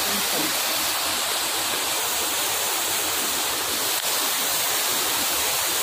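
Steady, even rushing noise of water in torrential rain, unchanging throughout.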